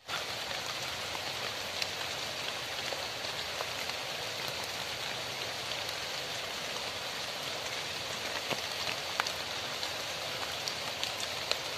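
Steady hiss of falling water, dotted with scattered sharp ticks like drops landing close by.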